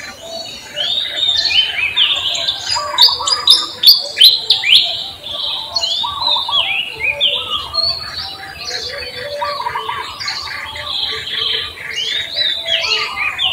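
Several birds chirping and calling together in a dense chorus: quick repeated notes and short downward-sweeping chirps, busiest and loudest around three to five seconds in.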